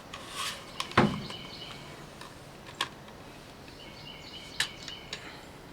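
Small clicks and taps from handling a pull-through cable cleaning kit and a cleaning patch, with a knock about a second in. Faint bird chirps in the background.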